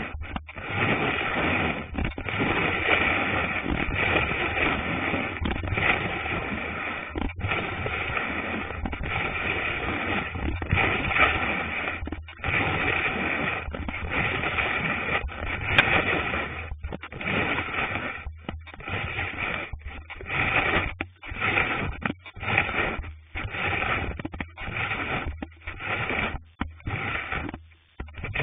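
Cross-country ski sliding along a groomed classic track, heard close up at the ski: a steady scraping hiss of snow against the ski, broken by brief pauses about once a second.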